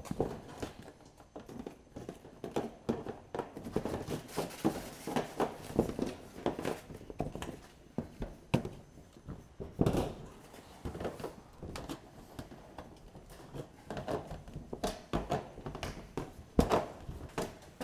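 Irregular metallic clicks and knocks as the ends of corrugated COLORBOND steel roofing sheets are turned up with hand pliers, one corrugation at a time, with short pauses between. Turning the ends up keeps wind-driven rain out at the top of a low-pitched roof.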